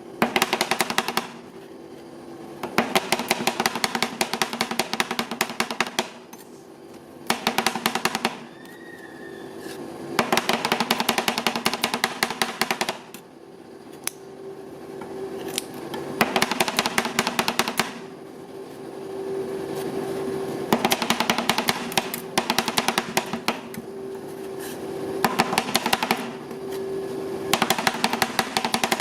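Two metal spatulas chopping and tapping rapidly on a frozen steel plate, in bursts of a few seconds each, with short pauses between them.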